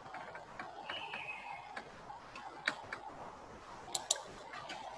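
Faint, irregularly spaced clicks over quiet room tone.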